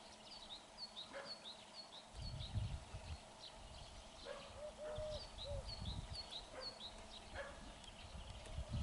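Woodpecker tapping on a dead tree in scattered single knocks while feeding. A small songbird repeats a short high note about three times a second in two runs, and a few lower call notes come near the middle. A low rumble comes and goes.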